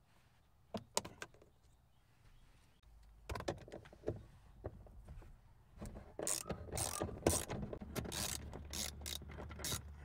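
Hand ratchet clicking in rapid runs as it backs out the seat belt's upper anchor bolt. A few scattered clicks come first, and the runs start about three seconds in and are busiest in the second half.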